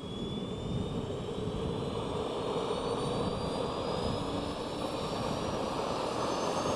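Small model jet turbine engine spooling up: a thin whine rising steadily in pitch over a rushing noise.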